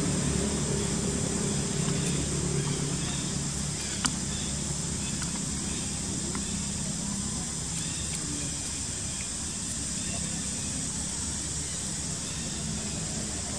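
Steady outdoor background hiss with a low hum that fades after about four seconds, and a single sharp click about four seconds in.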